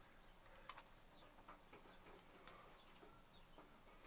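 Near silence: room tone with a few faint soft ticks and brief faint high chirp-like sounds.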